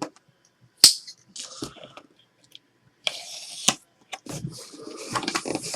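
Packaging of a signed-jersey box being opened and handled: a sharp click, then rustling and crinkling of cardboard and plastic wrapping.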